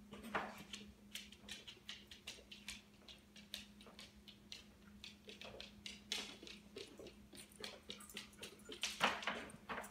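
A dog's toenails clicking irregularly on a hard floor as it walks about, with a louder clatter about nine seconds in.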